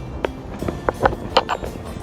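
Background music of short, plucked-sounding notes at uneven spacing.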